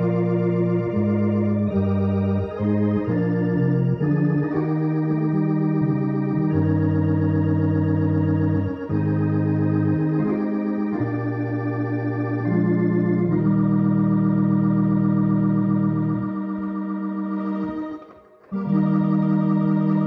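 Electronic organ playing slow sustained chords through a rotating-speaker cabinet with its rotor spinning, the tone wavering as it turns. There is a brief break between phrases near the end.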